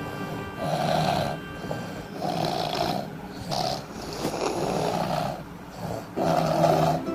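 Two people snoring in their sleep as a duet, loud noisy snores repeating about five times with uneven gaps.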